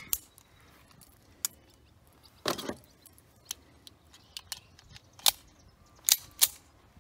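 Metallic clicks and clacks of a Star Model BM 9mm pistol being handled as a malfunction is cleared: a string of separate sharp clicks, with a louder clack about two and a half seconds in and three louder snaps near the end.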